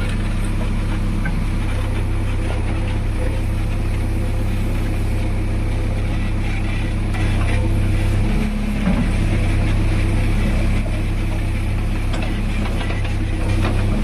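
JCB 3DX backhoe loader's diesel engine running steadily while levelling ground, getting a little louder for a few seconds past the middle as it takes more load.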